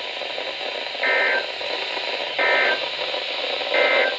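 Weather radio's SAME end-of-message code: three short, buzzy bursts of digital data tones about one and a half seconds apart, over steady radio static hiss. The bursts mark the end of the alert broadcast.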